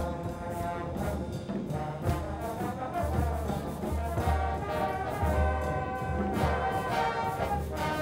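Marching band brass section playing full sustained chords over a repeated low bass note.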